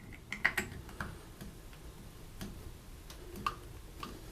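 Light, irregular plastic clicks and taps as a small cap is fitted into a new shower handle, about eight in all, the loudest near the start.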